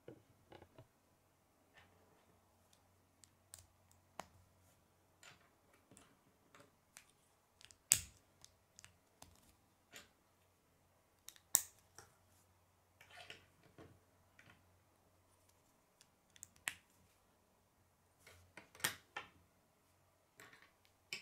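Plastic K'nex rods and connectors clicking as they are snapped together and set down on a wooden tabletop: irregular small clicks with a few sharper snaps scattered through.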